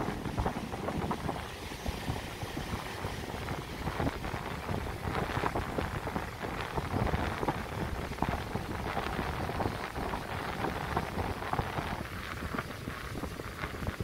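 Strong wind buffeting the microphone: a gusty rumble with crackling, over the wash of ocean surf breaking on the beach.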